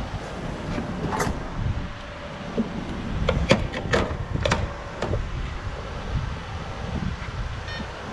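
Gas pump nozzle being handled and hung back in its holster: several sharp clacks and knocks, over a steady low rumble of vehicles.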